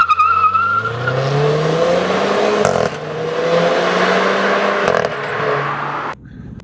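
Renault Clio RS18's 1.6-litre turbo engine with Akrapovič exhaust accelerating flat out from a launch-control start, with a short high squeal at the launch. The engine climbs in pitch, with quick dual-clutch upshifts about three and five seconds in, and the throttle closes near the end.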